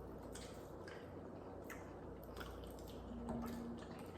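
Faint chewing of food with a few scattered light clicks.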